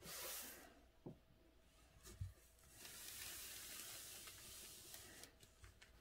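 Faint paper sounds from calligraphy rice paper. A brief swish at the start, then a few soft knocks, then a longer soft rustling hiss with small clicks as the sheet is slid along the desk.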